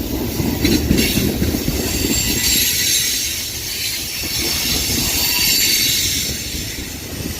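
Freight cars of a long manifest train rolling past: a steady rumble of steel wheels on rail with a few wheel clicks in the first second. A high-pitched wheel squeal and hiss is strongest through the middle.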